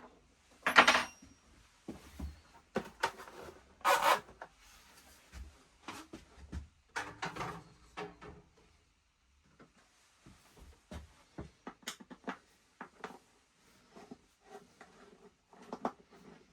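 Irregular clicks, knocks and rubbing of hand tools and metal parts being handled while a motorcycle is worked on, with two louder clatters in the first four seconds and lighter ticks and scrapes after.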